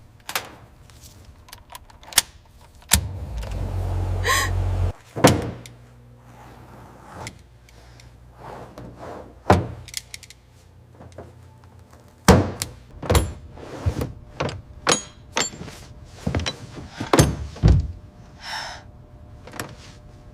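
A string of sharp knocks, thunks and clicks, irregularly spaced, with a low steady hum for about two seconds near the start and a brief ringing tone about four seconds in.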